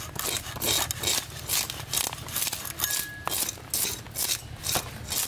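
Hilsa fish being scraped and cut against the edge of an upright boti blade: quick repeated rasping strokes, about three or four a second.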